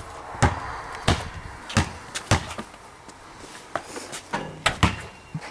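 A basketball bouncing on paved ground: a run of sharp, irregular thuds, about one every half second to second.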